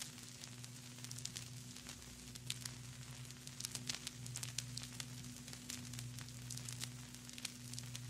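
Vinyl record surface noise from a stylus riding the groove of a dusty record: irregular crackles and pops over a soft hiss, with a steady low hum underneath.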